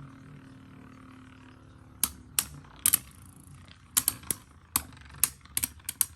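Beyblade Metal Fight tops spinning in a stadium with a steady low whir, then from about two seconds in a run of sharp, irregular clicks.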